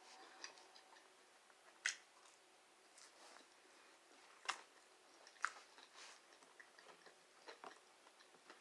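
Faint chewing of chicken nuggets: a person eating, with scattered soft, irregular mouth clicks and small bites.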